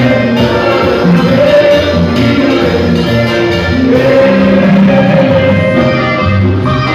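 A band playing a song, with a voice singing over it.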